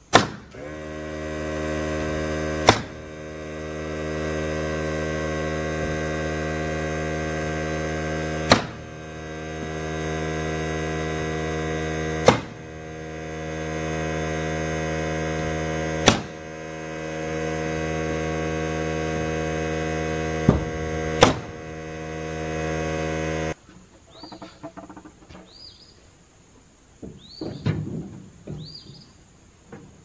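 A steady hum with sharp, single shots from a nail gun, about seven of them a few seconds apart, fastening rough-sawn pine siding boards. The hum cuts off abruptly about 23 seconds in, and light knocks of boards being handled follow near the end.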